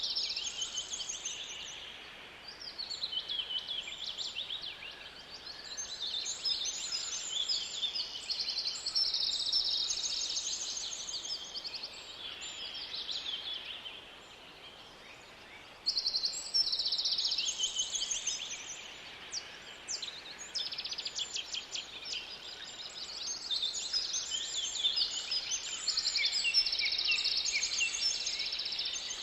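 Several songbirds singing together in a forest: overlapping fast trills and chirps come in waves, with a brief lull about halfway through.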